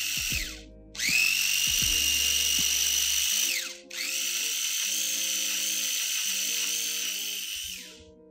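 Electric mini chopper's motor pureeing roasted squash in three pulses: each time it whines up to speed, runs steadily, then winds down when released, the last run about four seconds long. Soft background music underneath.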